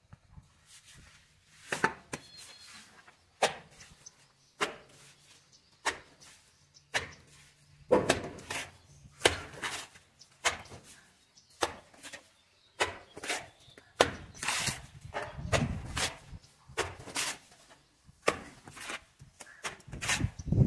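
A mason's steel trowel knocking and scraping in a metal pan of wet cement mortar as mortar is scooped and worked, a sharp knock about once a second with wet scraping between.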